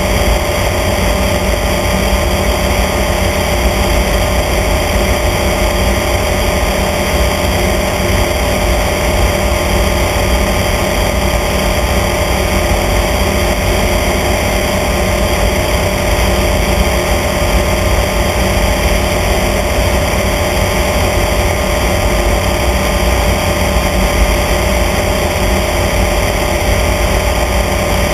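Light aircraft's engine and propeller droning steadily in level cruise, with one constant hum over a low rush.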